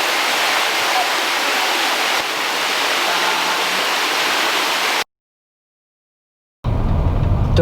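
Waterfall rushing steadily, an even hiss of falling water. It cuts off abruptly about five seconds in to dead silence, and a low rumble starts near the end.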